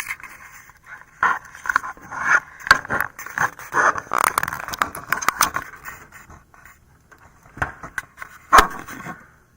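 Plastic scraping and clicking of a 24-pin ATX power connector being worked onto its motherboard socket, with a sharper click near the end.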